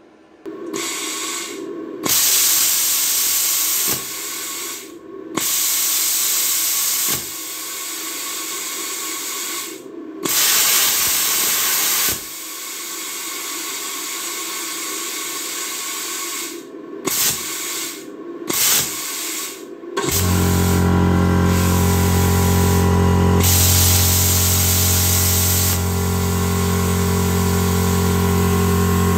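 Plasma cutter torch being triggered again and again: bursts of compressed-air hiss lasting about two seconds each, with quieter hiss between, as the arc fails to light or hold. The owner puts this down to his 16 A household breaker cutting the power. About twenty seconds in, the arc holds and a steady loud buzzing hiss of plasma cutting 10 mm flat bar runs on.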